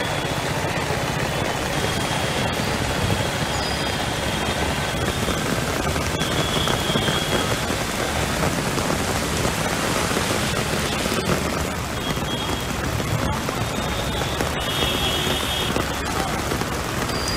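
Heavy rain pouring steadily, a dense even hiss, with road traffic in it.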